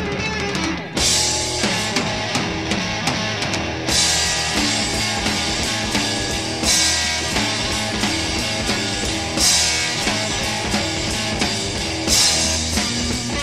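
Blues-rock instrumental from a 1968 studio recording: electric guitar riffing over bass and a drum kit. A cymbal crash comes about a second in, then roughly every three seconds after that.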